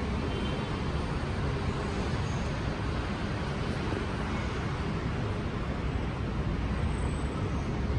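Steady rumble of city road traffic heard from an elevated rail platform, with no train arriving.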